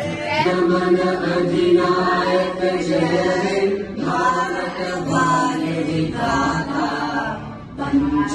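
A group of voices singing together in a chant-like way, with long held notes. The singing breaks off about four seconds in and again briefly just before the end.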